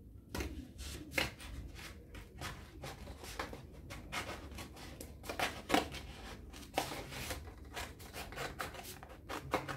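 A folded paper template being cut out by hand, with irregular short cutting strokes and paper rustling.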